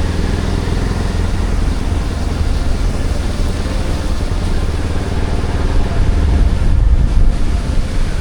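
Motorcycle on the move, its engine and road noise running steadily under a heavy low rumble.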